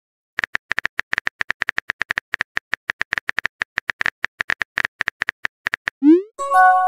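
Phone keyboard typing sound effect: rapid light clicks, about nine a second, for about five and a half seconds. About six seconds in, a short rising swoop, then a bright chime of a few held notes, a message-sent alert.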